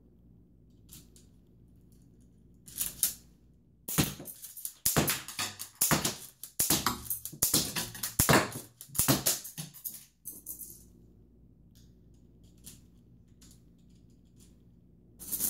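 K'NEX plastic rods and gun parts clattering and clicking as the rubber-band gun is handled: a few clicks, then a dense run of rattling for about six seconds, then scattered ticks and a short clatter at the end.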